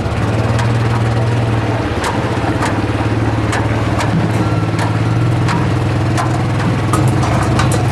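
A motor vehicle's engine running steadily with an even low hum, with scattered rattles and knocks throughout.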